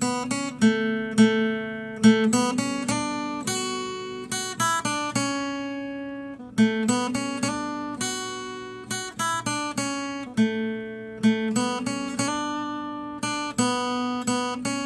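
Acoustic guitar music: picked notes and strummed chords, each ringing out and fading before the next.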